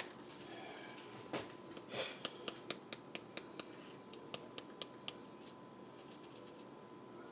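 Plastic spice jar of dried basil shaken over a metal teaspoon: a run of sharp clicks, about four a second, from about two to five seconds in, then softer rattling. The basil is coming out slowly.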